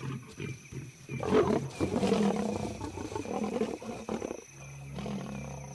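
Lions snarling and growling in a fight, dying down about four seconds in. A steady low hum follows.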